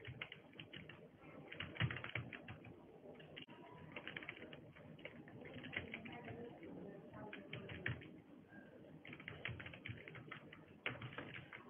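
Computer keyboard being typed on, keystrokes coming in quick clusters with short pauses between.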